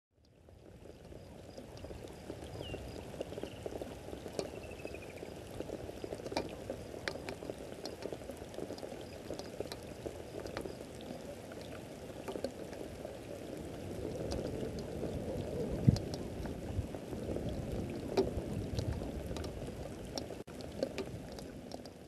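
Steady rain falling on grass and leaves, with scattered drops ticking. A bird gives two short falling calls a few seconds in, and there is a single dull thump about sixteen seconds in.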